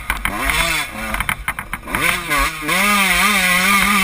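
Dirt bike engine revving while being ridden over loose dirt, its pitch rising and falling with the throttle, then held high over the last second and a half.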